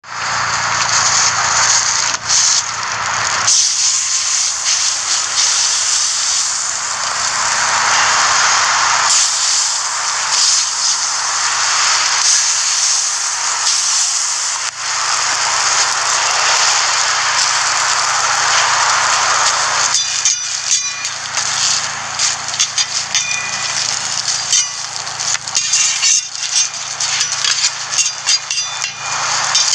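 Butter or oil sizzling on a hot flat-top steel griddle as slices of bread are laid into it. From about two-thirds of the way in, a metal spatula clicks and scrapes against the griddle plate.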